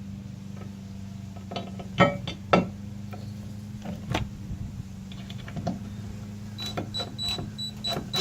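Power drill running steadily as it drives a stainless steel lag screw, with several sharp knocks and clicks along the way. The screw binds in a pilot hole that the driller suspects is too small.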